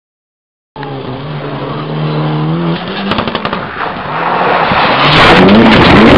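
Rally car engine at high revs as it comes through a bend, its pitch dropping and climbing again with gear changes, with rapid sharp pops and crackles. It gets much louder about five seconds in as the car passes close.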